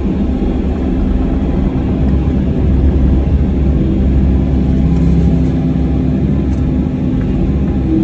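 Compact excavator's diesel engine running steadily, a low drone with a few held tones above it.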